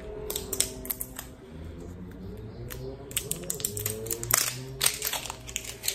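Plastic shampoo and conditioner packaging being handled and opened: irregular clicks and rustles, with one louder click about four and a half seconds in.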